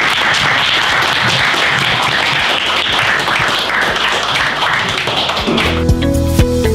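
A small group of people applauding with steady, dense hand clapping. About five and a half seconds in the clapping stops and a few sustained low notes of outro music start.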